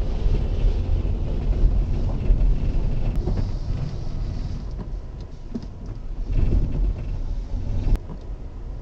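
Low, steady rumble of a car engine and tyres, heard from inside the cabin as the car drives slowly.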